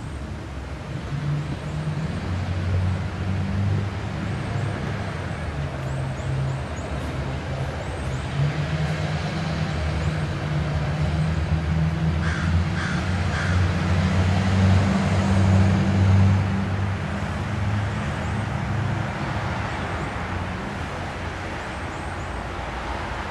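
A low engine hum that slowly swells, is loudest about two-thirds of the way in, then eases off. Crows caw a few times about halfway through, over faint chirping of small birds.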